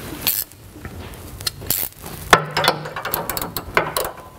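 Hand ratchet wrench clicking in irregular short runs as a lock nut is run down and snugged tight on a carriage bolt, the clicks coming thicker in the second half.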